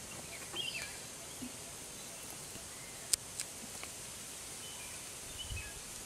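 Outdoor forest ambience: a steady hiss with a few faint, short bird chirps and one sharp click about three seconds in.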